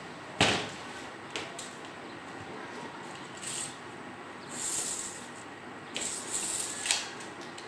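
Handling of a sheet of 300 g fiberglass chopped strand mat and a steel tape measure while measuring it. A sharp knock about half a second in and a couple of small clicks are followed by several short, dry rustling and scraping hisses.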